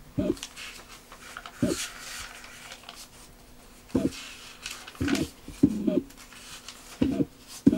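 Pages of a small, old paper booklet being turned by hand: paper rustling, with about seven short, low thuds at uneven intervals as the pages are handled.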